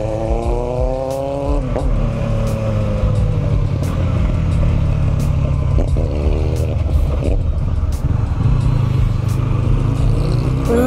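Sport motorcycle engine pulling hard, its pitch rising as it accelerates, then breaking off a little under two seconds in as it shifts, and climbing again later. Heavy wind rumble on the rider's camera microphone sits under it throughout.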